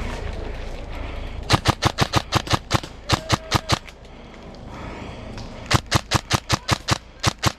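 Airsoft rifle firing quick strings of single shots, about six a second, in three or four bursts with short pauses between.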